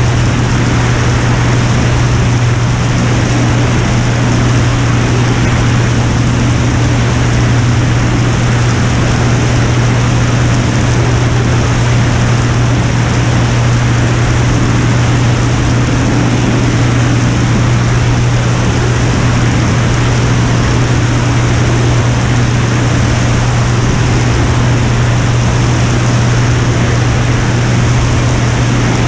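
Piper Turbo Saratoga's turbocharged six-cylinder engine and propeller in steady cruise: a constant loud drone with a strong low hum, under a rush of air noise.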